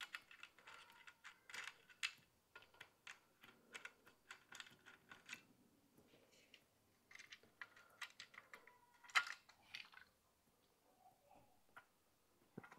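Faint, irregular small clicks and taps of hand tools on metal while 8 mm bolts are being undone, thickest in the first five seconds and sparser after, with one louder click about nine seconds in.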